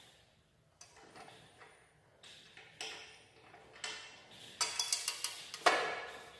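Metal parts of a manual push-type tile cutter being handled and fitted: scattered light clicks and knocks, then a quick run of clicks about four and a half seconds in and a sharper knock with a short ring near the end.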